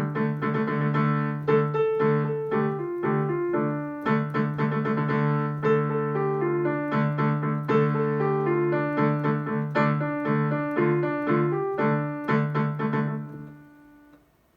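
Piano playing the accompaniment to a simple children's song, a melody over a steady low bass, with no singing. The playing stops and dies away near the end.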